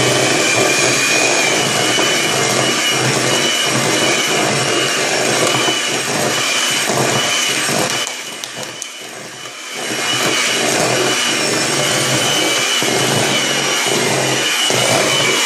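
Electric mixer running steadily, its beaters whipping thick peanut butter frosting as icing sugar is added, with a faint motor whine. It goes quieter for about two seconds in the middle, then picks up again.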